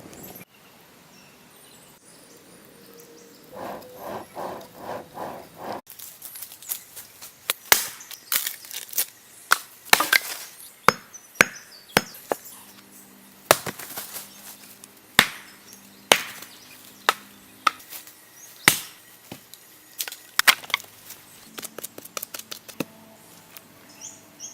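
Stone tool work: hard, sharp knocks of a stone striking, irregular and a second or so apart, after a brief run of quicker, even strokes.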